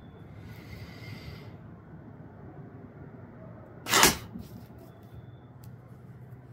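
A blowgun fired once, about four seconds in: a single short, sharp puff of breath driving a homemade skewer dart, with the dart hitting the paper-plate target almost at the same instant. A softer hiss comes near the start.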